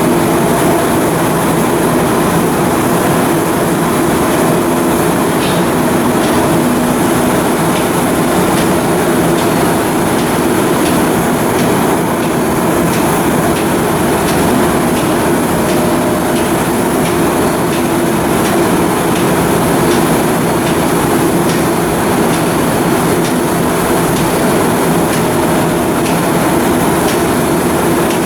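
Steady, loud machinery noise with a droning hum and faint, regular ticking, unbroken throughout.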